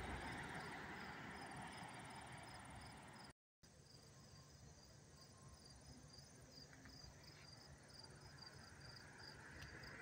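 Faint insects chirping outdoors: an even, high chirp repeating about three times a second over a thin, steady high buzz. The sound cuts out completely for a moment about a third of the way in.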